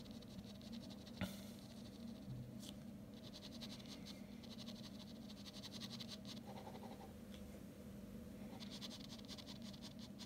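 Ballpoint pen scratching across drawing paper in quick hatching strokes, in two runs of a couple of seconds each, with a single click about a second in. A faint steady hum runs underneath.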